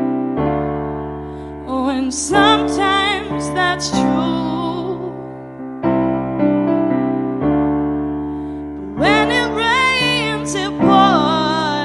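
A woman singing a slow ballad to her own piano accompaniment: sustained piano chords that change every second or two, with two sung phrases with vibrato, one about two seconds in and one about nine seconds in.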